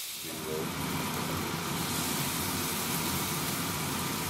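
Hamburger steak patties with onions frying in a hot cast iron pan, a steady sizzle over a low rumble, swelling about half a second in and then holding even.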